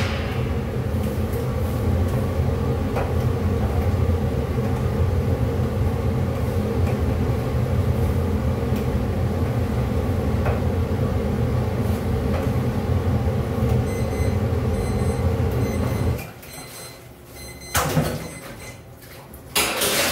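Steady, loud low mechanical rumble from the noodle station's machinery by the boiling pot, which cuts off suddenly about sixteen seconds in. Two short loud clatters follow near the end.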